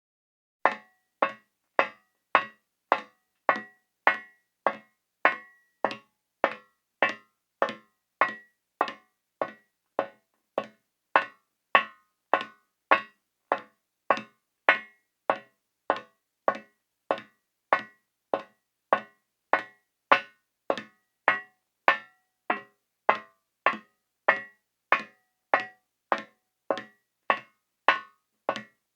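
High-heeled shoes walking at a steady pace on a metal floor: sharp heel strikes, each with a short metallic ring, a little under two steps a second.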